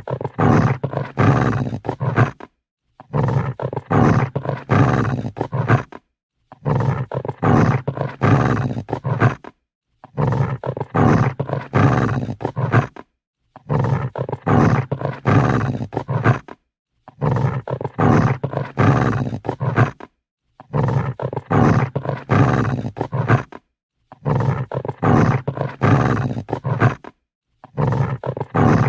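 An angry dog growling, each growl lasting about two and a half to three seconds, then a brief silence, repeating at an even pace about every three and a half seconds.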